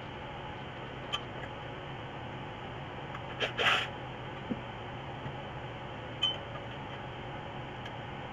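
Motorcycle muffler parts being handled: a few light metal clicks, and a louder scraping rattle of metal on metal about three and a half seconds in, over a steady low hum.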